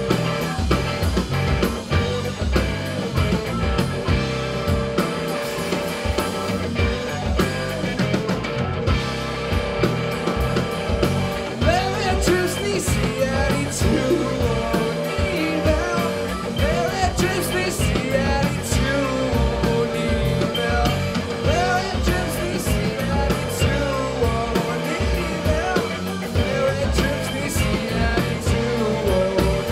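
Live jam-rock band playing: electric guitar, bass guitar, drum kit and keyboard together in a continuous instrumental passage, with bending melodic lines coming to the fore about twelve seconds in.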